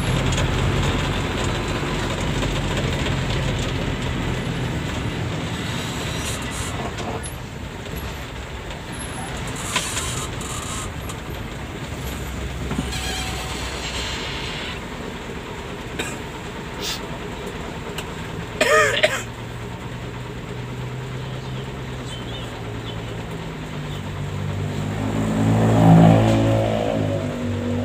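Bus engine running with steady road noise, as heard inside the bus. About two-thirds of the way in there is a brief sharp louder sound, and near the end an engine sound swells up and then falls away.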